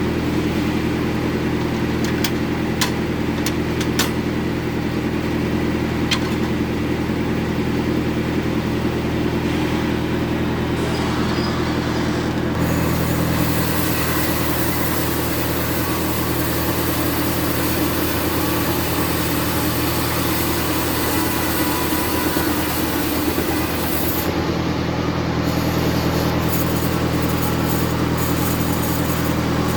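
Band sawmill running steadily with a low, even hum, the blade sawing through a jengkol log. A few sharp clicks come in the first seconds, and about twelve seconds in a brighter hiss joins.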